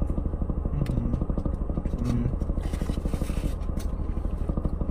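Close-up chewing and a few sharp clicks and crinkles from a foil burger wrapper over the steady low rumble of a car engine idling.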